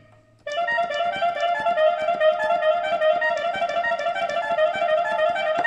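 Electronic keyboard sound played from an M-Audio MIDI keyboard: a quick, busy run of short repeated notes in a cumbia keyboard part, starting about half a second in after a brief pause.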